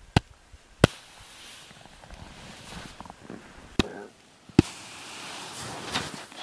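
Hand striking a shovel blade laid on top of an isolated snow column: the loading taps of an extended column test. Four sharp knocks in two pairs, with a steady hiss between them.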